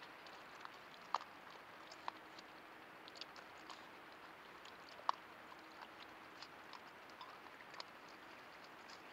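Raccoon eating from a dish close to the microphone: irregular chewing clicks, the sharpest about a second and five seconds in, over a faint steady hiss.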